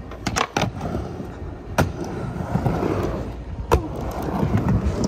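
Skateboard wheels rolling on a ramp, with several sharp clacks of the board, the loudest about two seconds in and again near four seconds in.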